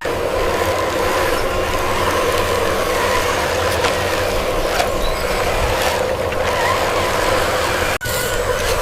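Small electric motor and gearbox of a homemade RC model running with a steady whine.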